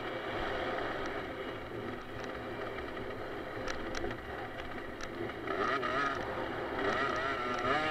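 The rider's own 50cc automatic two-stroke motocross bike engine, heard from the on-board camera, running and revving up and down through the corners, its pitch wavering more in the second half. Wind on the microphone, and a few sharp clicks about halfway through.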